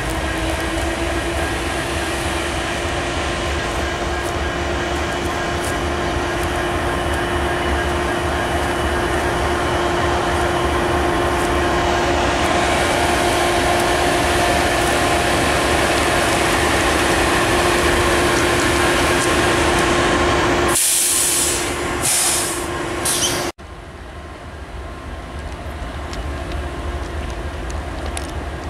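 Union Pacific diesel locomotive rolling slowly past at close range, its engine running with a steady whine over the rumble of wheels on rail. Near the end come a few short hissing bursts, then the sound cuts abruptly to a quieter locomotive approaching and slowly growing louder.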